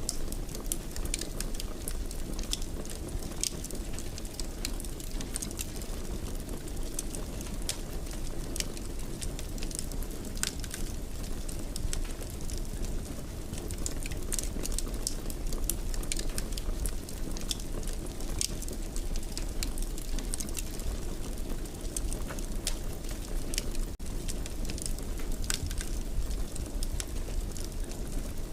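Wood fire crackling in a fireplace: irregular sharp pops and snaps over a steady low rumble of the flames.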